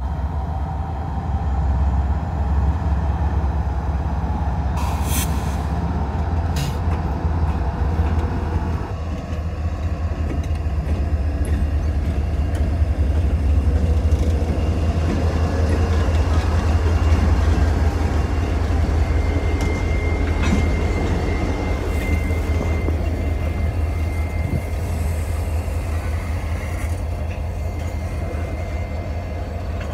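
Two CSX diesel freight locomotives, a GE ES40DC leading and an EMD GP40-3 trailing, running past close by with a steady low engine rumble. There are two brief hisses about five seconds in and a thin high squeal through the later part.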